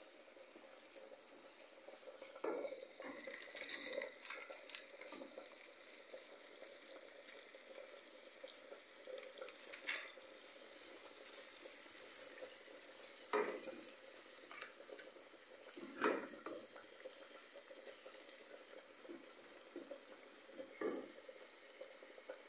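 Silicone spatula stirring and scraping chopped onions and green peppers frying in a non-stick pan, over a faint steady sizzle, with a few sharper knocks of the spatula against the pan.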